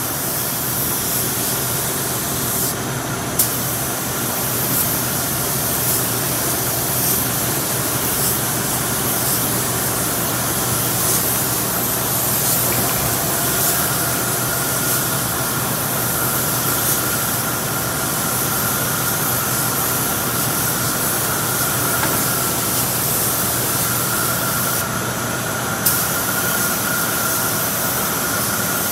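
Air-powered spray gun hissing steadily as it sprays primer, with a steady low hum underneath. The hiss cuts out briefly twice, about three seconds in and about twenty-five seconds in, each time starting again with a sharp click.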